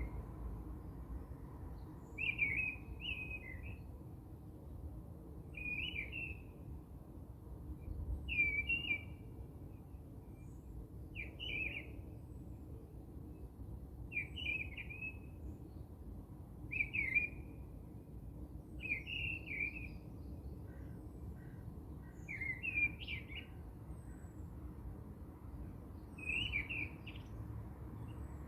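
A bird chirping, a short warbled call repeated roughly every three seconds, over a faint low hum.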